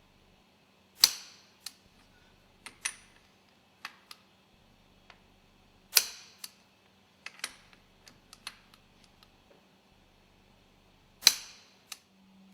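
Hand tools on metal while the starting valve nuts on a marine engine cylinder cover are tightened: three loud sharp clanks about five seconds apart, with lighter clicks and taps between.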